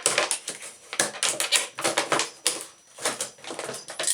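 A faucet stem replacement kit's packaging being opened by hand: a quick, irregular run of crinkling, crackling and rustling noises.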